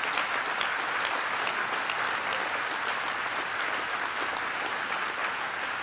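A large seated audience applauding steadily: many hands clapping together.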